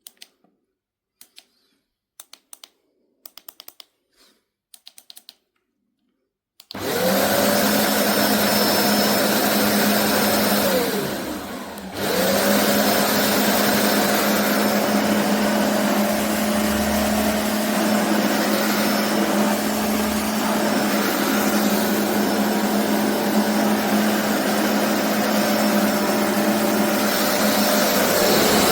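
A few faint clicks, then the BISSELL Revolution HydroSteam carpet cleaner's 1300 W suction motor switches on about seven seconds in and runs steadily with a whine. Around the middle it briefly sinks in pitch and level, then spins back up and carries on.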